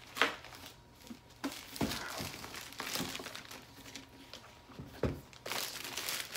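Clear plastic wrapping crinkling and rustling as it is pulled off a cutting machine and scrunched up by hand, with two dull knocks, at about two and five seconds in.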